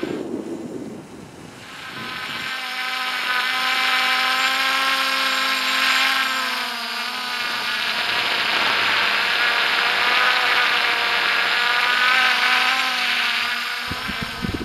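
MJX Bugs 3 brushless quadcopter's four motors and propellers whining in flight, the pitch wavering as the throttle shifts. The sound dips about a second in, then swells back up and holds.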